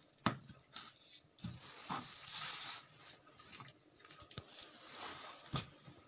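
Scattered light clicks, knocks and rustling close to the microphone, with a brief hiss about two seconds in: handling and movement noise while the phone is moved around.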